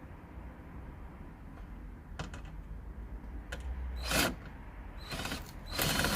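Hand tools at work fitting a car's front bumper lip: several short clicks, then two louder rasping, clicking bursts about four and six seconds in.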